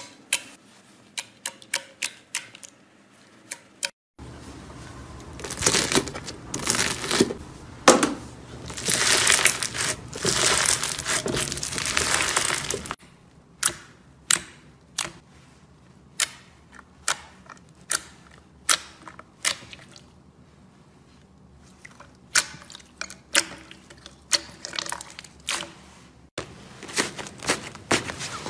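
Hands squishing and pressing slime, making sharp wet clicks and pops as air pockets burst. From about four seconds in to about thirteen seconds the pops run together into a louder, denser crackling squelch, then thin out to single pops about once or twice a second.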